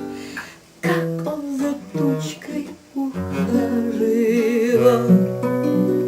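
Woman singing to a strummed acoustic guitar, holding one long note with vibrato near the middle.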